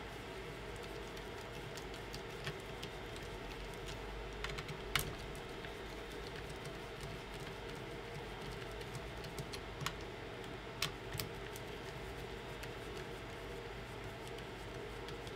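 A few scattered light clicks and taps from handling a bundle of wires and small connectors, over a steady low hum. The sharpest click comes about five seconds in, with a couple more near ten and eleven seconds.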